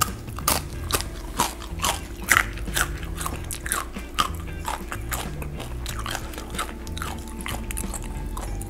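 Crisp crunching of a person biting into and chewing a piece of starch-coated fried muk (Korean starch jelly), with many sharp crunches over the first five seconds or so, then fewer as the chewing slows.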